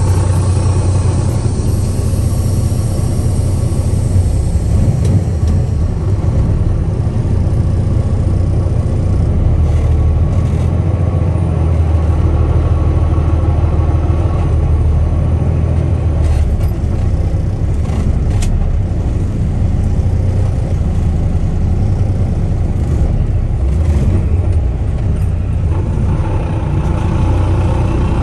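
Kenworth dump truck's diesel engine running with a steady low rumble, with a few brief clicks over it.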